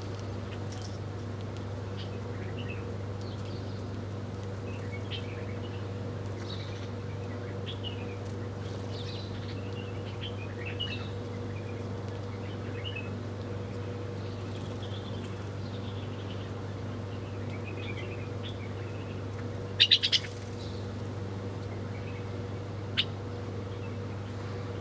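Small birds chirping, with short scattered calls throughout over a steady low hum. A brief, loud burst of sound about twenty seconds in is the loudest moment.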